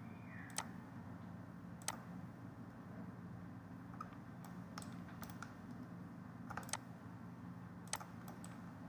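Computer mouse clicking, about eight sharp, irregularly spaced clicks, over a steady low hum.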